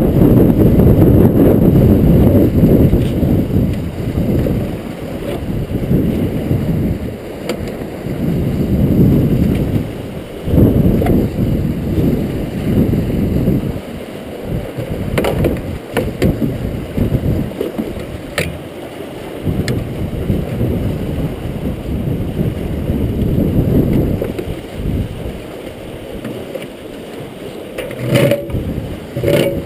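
Rotary screw fish trap turning in a river current: water rushing and churning through the rotating cone and debris-filled live box, in uneven surges. A few sharp metallic clicks and knocks sound over it, most near the end.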